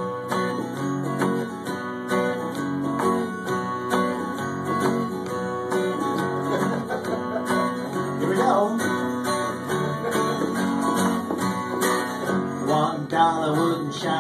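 Twelve-string acoustic guitar strummed in a steady rhythm, an instrumental break between verses of a folk song.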